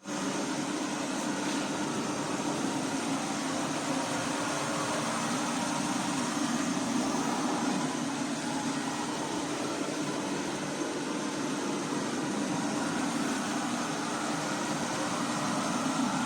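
Ultenic D10 robot vacuum's suction motor running at a steady pitch, a constant whir with rushing-air hiss.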